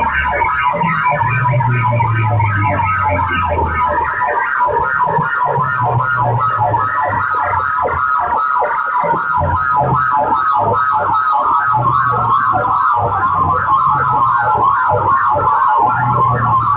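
Electronic siren-like warbling tone pulsing about five times a second, over deep bass notes, played loudly through a DJ sound-box system. The bass drops out about four seconds in and comes back in short bursts.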